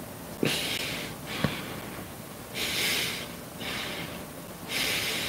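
A man breathing out hard in about four hissy puffs, each under a second, as he fights down the strong taste of stinky tofu he has just eaten. There is a short click about a second and a half in.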